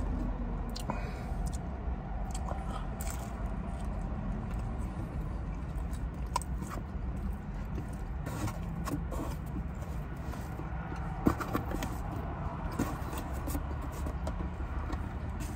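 Close-up chewing of a mouthful of stuffed pizza: scattered wet mouth clicks and smacks, one sharper click about eleven seconds in, over a steady low hum.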